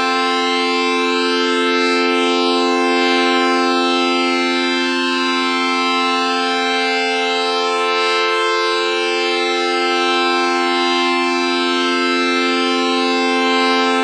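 Siren sound effect sounding a steady, held multi-tone chord without rising or falling, loud throughout, with a brief dip in the lowest tone past the middle.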